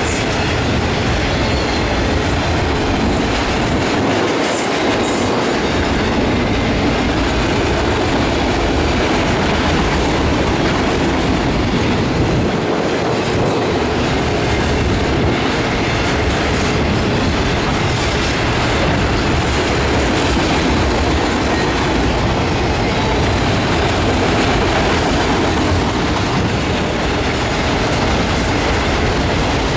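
Freight train of autorack cars rolling past at close range: a steady, loud noise of steel wheels running on the rails and the cars rattling.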